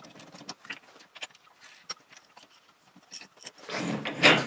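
Steel change gears on a Vevor mini metal lathe clicking and clinking as they are slid onto the gear-train posts and meshed by hand. Near the end the chuck is turned by hand, running the gear train with a louder, busier rattle.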